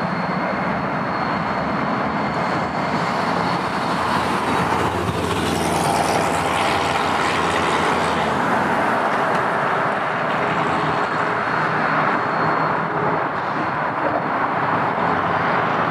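BNSF diesel locomotives running as they move off down the track, mixed with steady road traffic noise; a car passes close by about five to eight seconds in.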